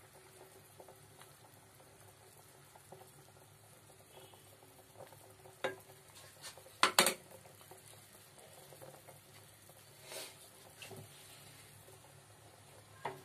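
Milk simmering faintly in a nonstick pan while a silicone spatula stirs it, with a few sharp knocks of the spatula against the pan. The loudest is a quick double knock about seven seconds in.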